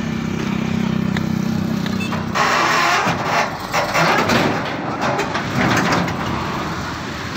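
Wheeled excavator's diesel engine running steadily under load, then from about two seconds in several loud bursts of grinding, crunching metal as the wrecked truck is dragged.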